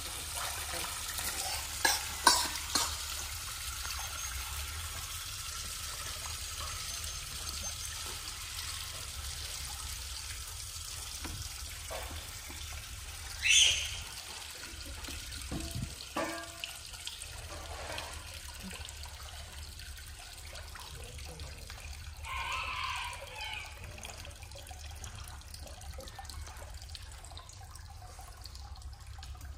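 Water running and splashing, with a few sharper splashes about two seconds in and a louder one near the middle.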